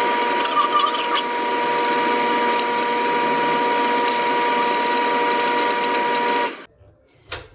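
Microwave oven running with a steady, loud hum that cuts off suddenly near the end, followed shortly by a single click.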